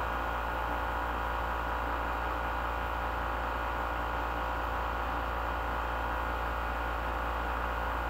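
Steady hiss with a low hum, unchanging throughout: the recording's background noise floor, with no other sound.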